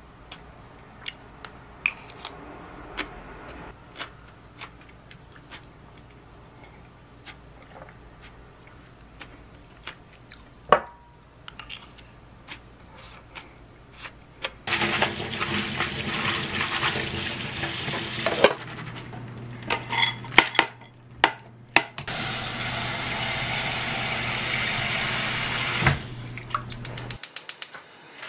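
A spoon clicking now and then against a ceramic bowl while eating. About halfway through, water runs hard into a sink in two spells of a few seconds each, with dishes clattering between them.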